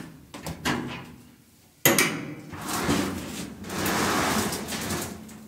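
Spring clips holding a Roper dryer's sheet-metal top being pried loose with a flat blade: a few small clicks, then a sharp loud snap about two seconds in, followed by a few seconds of scraping as the top is worked free.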